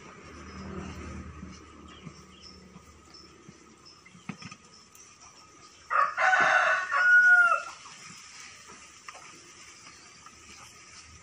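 A rooster crows once about six seconds in, a call of under two seconds that ends on a falling note.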